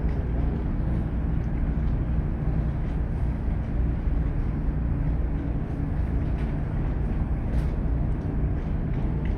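Steady low rumble of the cargo ferry Helliar's engines as it moves through the harbour, with faint steady low hums and no change in level.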